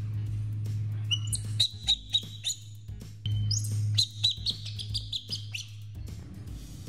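Baby monkey giving rapid, high-pitched squeaks in two runs, the first about a second in and the second from about three seconds in, over background music.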